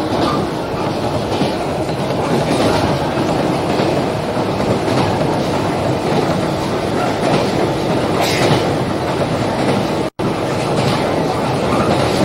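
Steady running noise heard inside a JR Narita Line local electric train (113 series) moving at speed: wheels rumbling on the rails with a faint clickety-clack of rail joints. The sound drops out for a split second about ten seconds in.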